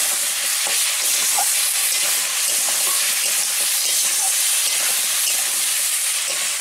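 Cut potato, taro stems and green papaya sizzling in hot oil in a wok as a spatula stirs them: a steady frying hiss.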